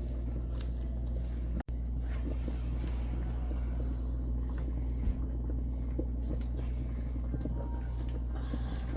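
Steady low hum with faint scattered clicks and scrapes of a spoon stirring chicken and sauce in a pan. The sound cuts out for an instant a little under two seconds in.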